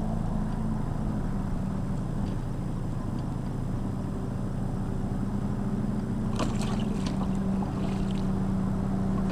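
Tohatsu outboard motor idling steadily at trolling speed, with a few short water splashes about six to eight seconds in as a walleye is released over the side of the boat.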